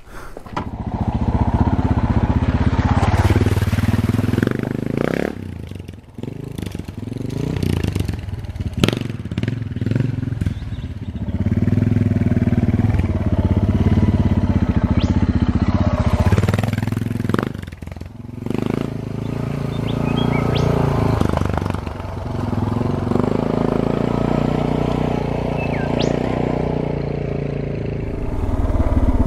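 Suzuki DR650's single-cylinder four-stroke engine running at low revs, the throttle opened and shut repeatedly as the bike crawls over rough, rocky ground, with a few sharp knocks in between.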